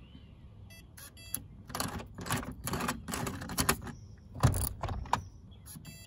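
Welock Touch41 smart-lock cylinder being turned by its knob to lock the door: short electronic beeps from the lock, then stretches of mechanical clicking and rattling from the cylinder and bolt, with a heavier clunk a little after four seconds.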